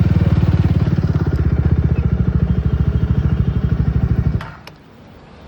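Jawa 42 Bobber's single-cylinder engine running loud and close, with an even throbbing exhaust beat, fading out about four and a half seconds in.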